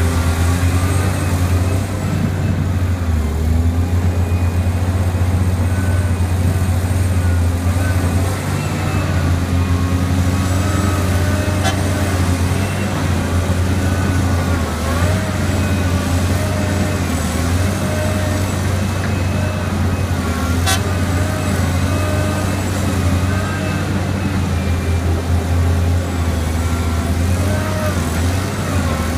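Liebherr R 984 crawler excavator's diesel engine running under load with a deep steady drone, its pitch wavering as the hydraulics work the boom and bucket while digging. Two short sharp clanks, about twelve and twenty-one seconds in.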